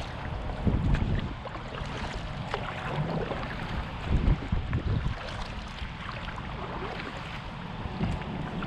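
Wind buffeting the microphone in uneven gusts, over water noise around a small kayak being paddled.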